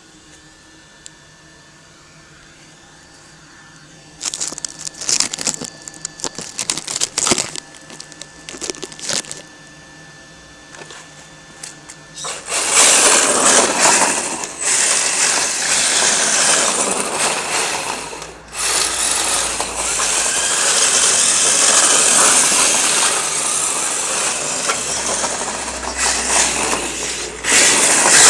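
HSP RC car running on drift wheels over concrete, a hissing scrub of sliding tyres. It comes in short, uneven bursts at first, then runs almost continuously and loud from about halfway, with a brief break a few seconds later.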